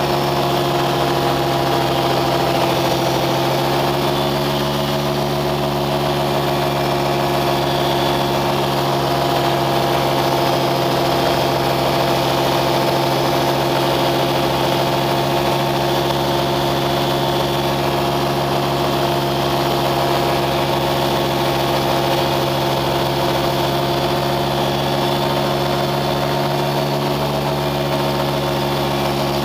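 An engine running at a constant speed: a steady hum of several unchanging tones over a noise background.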